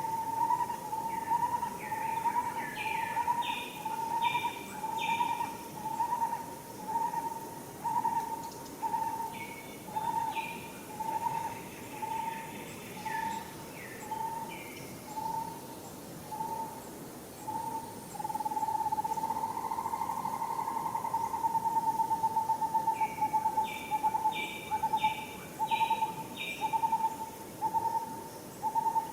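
A bird calling one hooting note over and over, a little more than once a second, that briefly runs together into one long note past the middle. Other birds chirp in short runs of higher notes over it.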